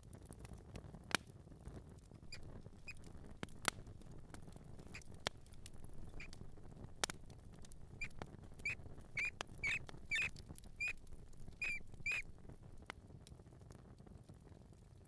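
Mouse squeaking and scratching: scattered sharp ticks and scrabbling early on give way, about halfway through, to a run of about ten short, high squeaks.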